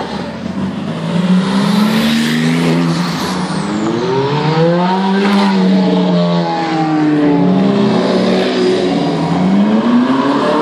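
Supercar engine revving and accelerating, its pitch climbing and dropping several times.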